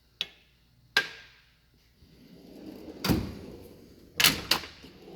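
Snap-on Epiq toolbox drawers being worked: two sharp clicks, then a drawer sliding on its runners with a heavy clunk about three seconds in and two more just past four seconds.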